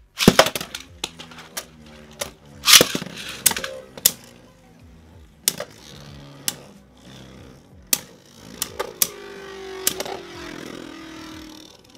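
Beyblade Burst tops launched into a plastic stadium and spinning: irregular sharp plastic clacks as they strike each other and the stadium wall, the loudest cluster about three seconds in.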